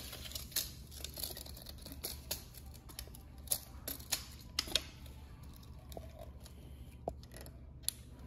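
Faint scattered clicks and taps of hand handling at the sewing machine's presser foot, over a low steady hum.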